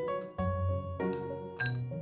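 Background music: a light keyboard tune with bell-like notes, a new note or chord about every half second.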